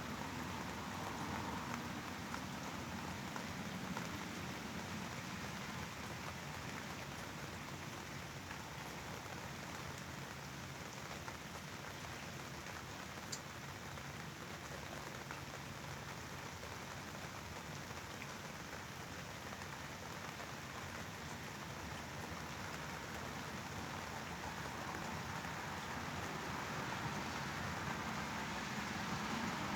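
Steady rain: an even hiss with a few faint drop ticks, played as a sleep sound.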